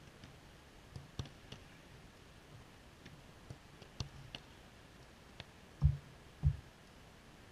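Football being struck and caught during goalkeeper training: a scattering of sharp, distant thuds, then two louder, deeper thumps about half a second apart near the end.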